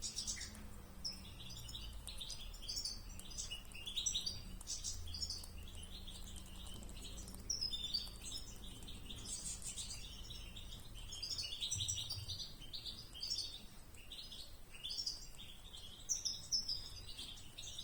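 Small songbirds chirping and twittering in a busy, continuous run of short high calls.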